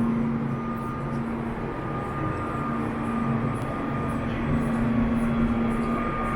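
Seoul subway train running: a steady rumble with a constant hum and a faint, higher whine that comes and goes.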